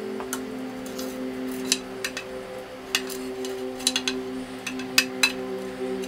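Soft sustained background music, with several sharp light clicks and ticks as a small blue-capped part is handled at a carbon road-bike frame and pulled from its down tube. The loudest click comes about five seconds in.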